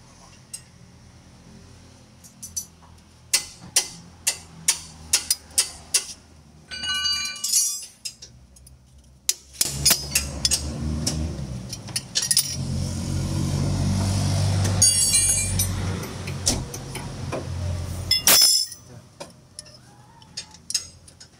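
Metal tools tapping and clinking on suspension parts under a hum of machinery, with a ringing metallic clink about seven seconds in. A loud, steady mechanical noise then runs for about nine seconds and cuts off suddenly.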